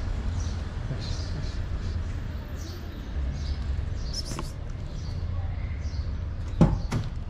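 Street ambience: a steady low rumble with faint bird chirps repeating about every half second, and one sharp knock near the end.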